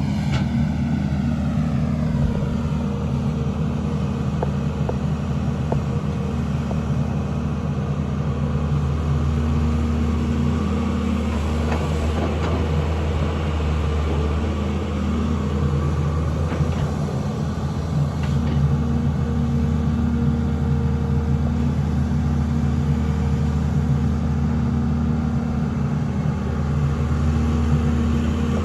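Excavator's diesel engine running steadily under working load, with a whine that falls in pitch over the first couple of seconds and a few faint knocks.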